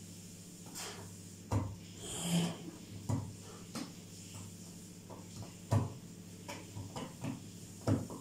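About five sharp knocks and taps of small glass jars being picked up, handled and set down on a table, with a brief rustle about two seconds in. A low steady hum runs underneath.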